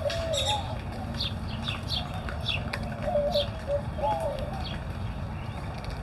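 Doves cooing repeatedly in low, wavering phrases, with many short, high chirps from small birds over them and a steady low rumble underneath.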